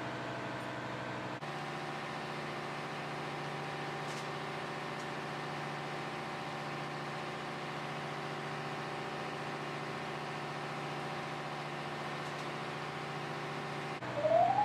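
Steady drone of a ship's engine room machinery running, a hum made of several steady pitched tones. Just before the end a single tone rises quickly in pitch.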